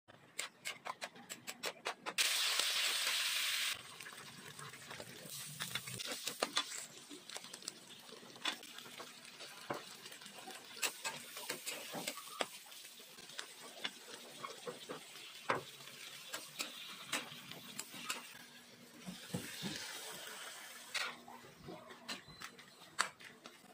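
Metal spatula clacking and scraping against a metal wok while stir-frying, with quick clacks at the start and scattered ones after. About two seconds in, a loud hiss lasts about a second and a half, and a faint sizzle runs under the stirring.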